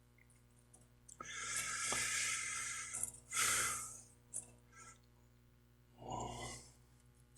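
Metal lathe carriage being wound along the bed by its handwheel, moving it out of the way: three stretches of whirring, a longer one of about two seconds followed by two shorter ones.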